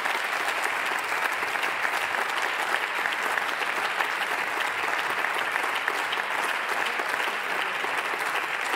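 Members of parliament applauding: many hands clapping at a steady level.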